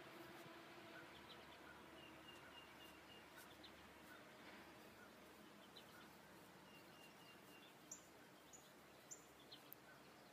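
Near silence: faint outdoor background hiss with a few faint, short bird chirps, several of them near the end, and a faint ringing tone that fades out over the first few seconds.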